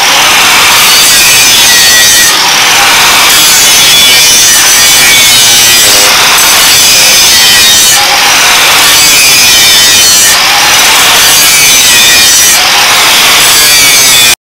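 Angle grinder grinding the steel of a rusty chainsaw blade, a loud continuous grinding whose tone shifts every couple of seconds.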